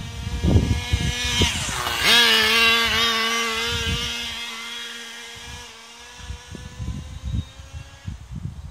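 Nitro engine of a 1/10 Tamiya Raikiri RC car screaming past at speed. Its pitch drops sharply as it passes about two seconds in, then holds a steady note that fades as the car runs off into the distance.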